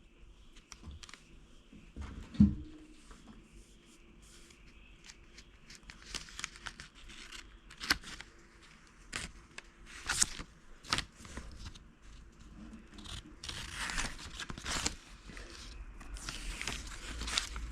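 Packaging being handled and pulled open: crinkling and tearing rustles with scattered light clicks and taps, the rustling heavier near the end.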